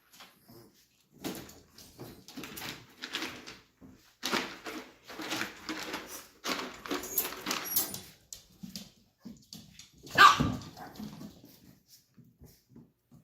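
Chihuahuas barking and yapping in a run of short bursts, with one loud sharp bark about ten seconds in.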